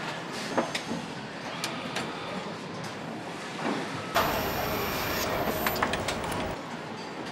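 Engine assembly line floor noise: a steady machinery hum with scattered metallic clicks and clanks. About four seconds in, a louder hissing stretch runs for about two seconds and cuts off suddenly.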